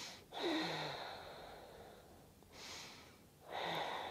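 A woman breathing deeply and audibly while holding a yoga pose. There is a long breath that fades away, a short one about two and a half seconds in, and another long one starting near the end.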